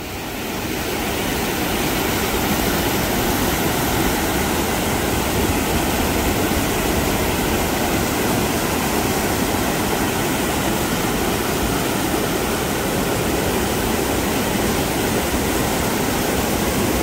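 River rapids rushing over rocks, a steady churn of white water that rises over the first second or two and then holds level.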